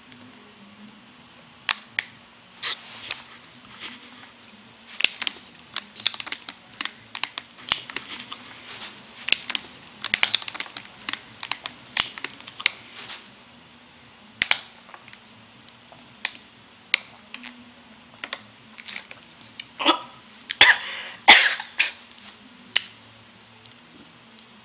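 Irregular sharp clicks and crackles close to the microphone, coming in loose clusters, loudest about three-quarters of the way through, over a faint steady hum.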